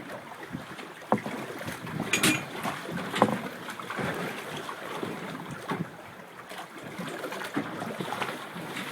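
Water sloshing against a small boat's hull, with a few sharp knocks and thumps on the boat, about a second in and again near two and three seconds in.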